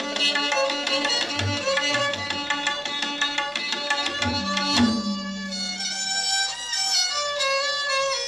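Instrumental music: a bowed string melody, violin-like, over hand-drum beats. The drums stop after one heavy beat about five seconds in, leaving the string melody alone.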